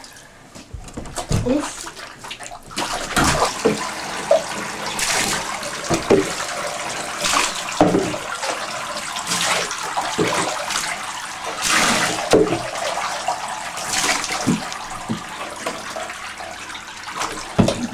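Water running and splashing in a bathtub, starting about three seconds in and swelling every two seconds or so.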